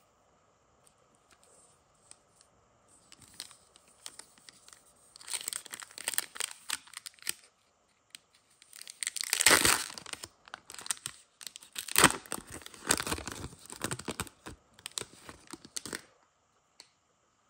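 Foil trading-card pack wrapper being torn open and crinkled in the hands. It comes in irregular bursts, loudest about halfway through, and stops shortly before the end.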